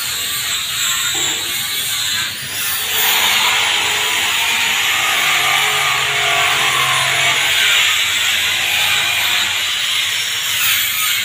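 A power tool running steadily in the background, an even, noisy sound that grows louder about three seconds in and holds.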